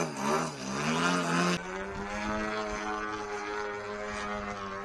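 Desert Aircraft DA-120 twin-cylinder two-stroke petrol engine and propeller of a large radio-controlled aerobatic plane, its note rising and falling in pitch several times, then about one and a half seconds in turning abruptly into a quieter, steady drone. The engine is running cleanly, its earlier trouble cured by a manual carburettor needle setting.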